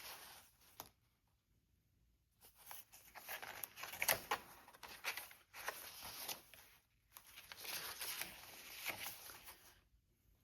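Paper rustling and scraping as journal pages, cards and pockets are handled, in two long stretches with small taps among them.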